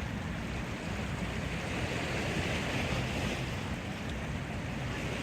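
Wind blowing on the microphone: a steady rushing noise with low, uneven buffeting.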